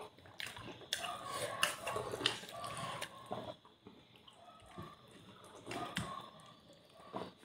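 Faint mealtime sounds at a table: soft chewing and handling of food, with a few light clicks and taps of dishes spread through.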